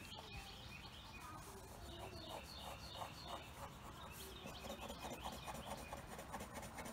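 Faint scratching of a white colored pencil rubbing on paper in quick, repeated up-and-down shading strokes.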